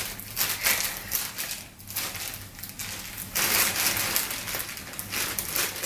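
Clear plastic packaging bag crinkling and rustling as hands pull it open, louder from about three and a half seconds in.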